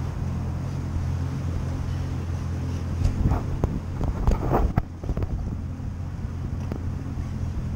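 Boat engine idling with a steady low hum, with wind buffeting the microphone. A few short knocks and rattles come in the middle.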